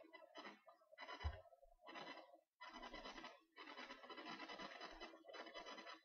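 Faint scratching and rubbing noise in several irregular bursts, with a short low thump about a second in.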